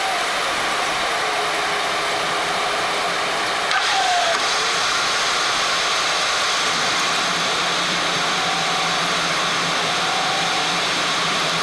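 Steady engine and airflow noise inside an Airbus A300-600 cockpit, with a faint hum running under it and a soft click about four seconds in, after which the noise is slightly louder.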